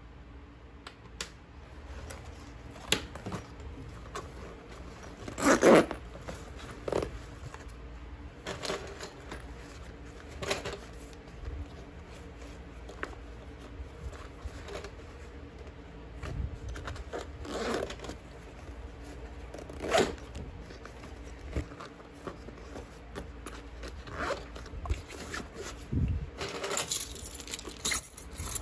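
Hands packing a small canvas shoulder bag: a zipper pulled, fabric rustling and scattered knocks as items are handled and put in, with a cluster of jingling clinks from keys near the end.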